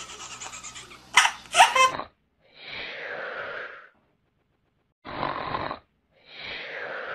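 A baby laughing for about the first two seconds, then snoring: three breathy snores, the last sliding down in pitch.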